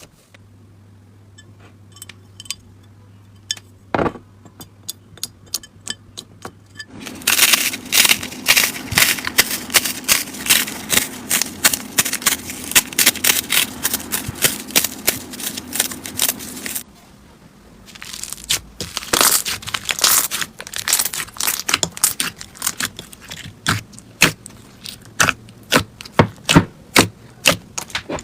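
Slime being squeezed, poked and pressed by hand, making a run of sharp crackles and pops. Sparse clicks at first, then a dense crackling stretch from about 7 to 17 seconds in, a short lull, and quick popping clicks again.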